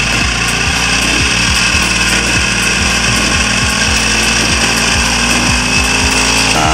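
A portable power sprayer's small four-stroke petrol engine running steadily, driving its brass pump.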